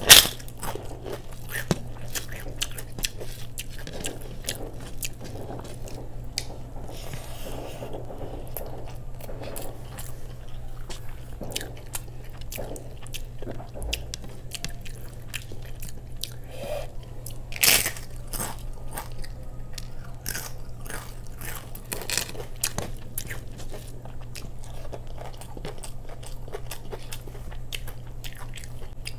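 Close-miked mouth sounds of eating: chewing with many small crisp crunches from papad, and two louder sharp crunches, one just after the start and one about two-thirds through.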